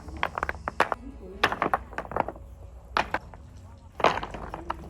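Sharp knocks and clacks of stones striking one another in irregular clusters, as loose rocks are cleared off a road by hand.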